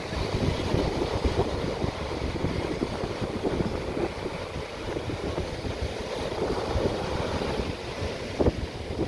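Small waves breaking and washing up a sandy beach, with wind buffeting the microphone in an uneven low rumble.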